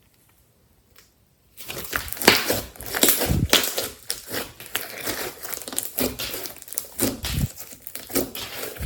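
Slime being squeezed and kneaded by hand, crackling and crunching with many small snaps, starting about a second and a half in.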